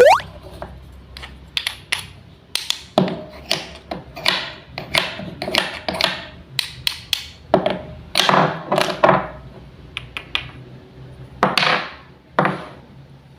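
Wooden toy fruits and vegetables being cut and handled: a string of hard wooden clacks and taps, about one or two a second, several of them drawn out into short scraping rips as the pieces come apart. A quick rising whistle-like glide sounds at the very start.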